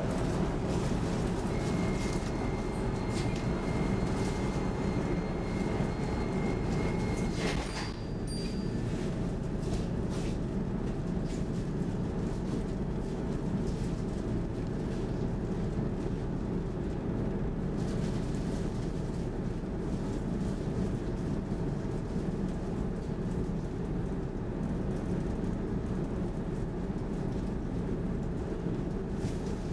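Inside an SL X10 commuter train's passenger car: the steady low hum of the train's electrical and ventilation equipment while it stands at the platform and then starts to move off. A thin high tone sounds for several seconds and ends with a sharp thump about eight seconds in, after which the hum is a little quieter.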